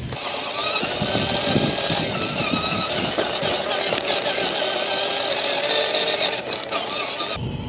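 Electric motor and gears of a 1:10 scale RC crawler truck whining up close, the pitch wavering up and down with the throttle. It starts just after the opening and cuts off shortly before the end.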